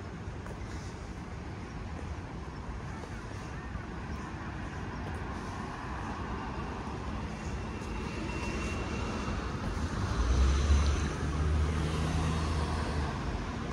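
City street traffic with vehicles going by; about ten seconds in, one passes close with a louder low engine hum.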